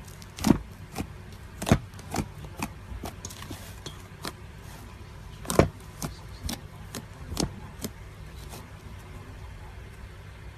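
White slime pressed and poked by hand, giving off irregular sharp pops and clicks as air pockets in it burst. The loudest pops come about half a second in, near two seconds in and a little past the middle, and they die away near the end. Under them runs a steady low hum.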